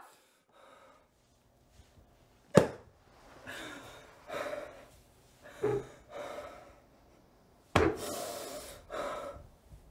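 A man crying in anguish: ragged, gasping breaths and choked sobs, with two sudden loud sobs, one about two and a half seconds in and one about eight seconds in.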